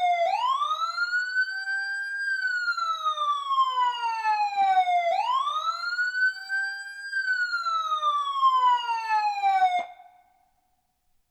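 Emergency vehicle siren wailing: a slow rise in pitch, a short hold, then a long fall, in two full cycles about five seconds each. It cuts off abruptly about ten seconds in.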